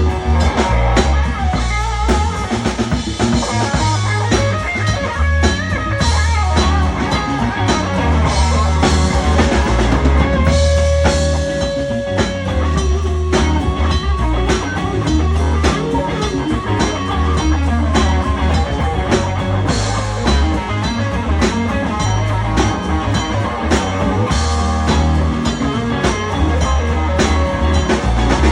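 Electric blues guitar solo over drums and bass guitar, full band playing, with bent notes and a long held note about ten seconds in.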